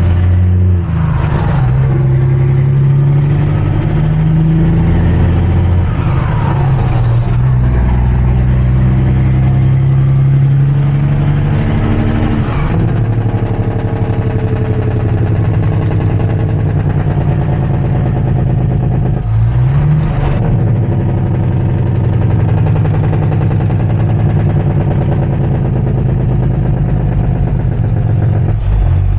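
Semi-truck diesel engine heard from inside the cab, pulling through the gears. The engine note and a high whine climb together, then drop sharply at each of three shifts in the first half. After that the whine slowly fades while the engine runs on, with one more dip about twenty seconds in.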